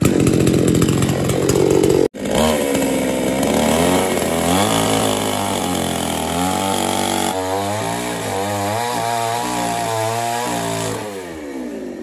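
Two-stroke chainsaw running, with a sudden brief break about two seconds in; after it the engine runs on with its pitch rising and falling, easing off near the end.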